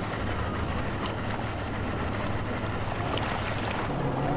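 A boat engine idling with a steady low hum, with wind on the microphone and water lapping; the hum steps slightly higher in pitch near the end.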